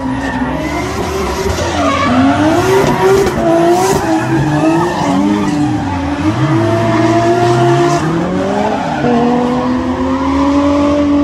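Several stock car engines revving, their pitch rising and falling, with tyres squealing on the pavement. From about nine seconds in, one engine holds a steadier high note.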